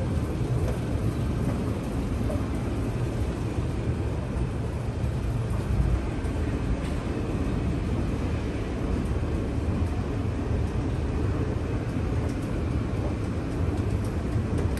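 Mitsubishi escalator running, a steady low rumble from the moving steps heard while riding it.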